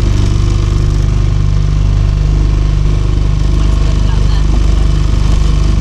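Small hire motor boat's engine running steadily, a low, even pulsing drone heard from on board.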